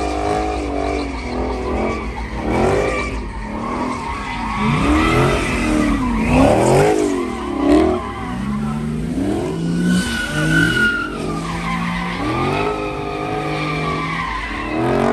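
Dodge Charger spinning donuts: the engine revs up and down again and again, then holds high for several seconds near the end, while the rear tyres spin, squeal and skid on the pavement.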